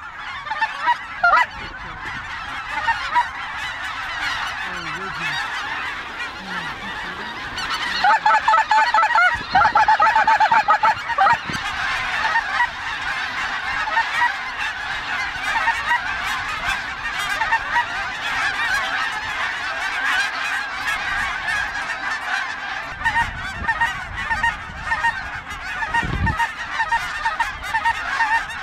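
A large flock of snow geese calling overhead: a dense, continuous high-pitched yelping and honking, with a louder run of close calls about eight to eleven seconds in.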